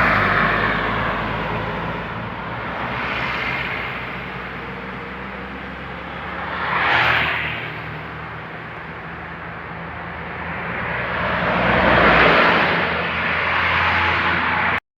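Road traffic: vehicles passing by one after another, each a rising and falling whoosh, over a steady low engine hum. The sound cuts off suddenly near the end.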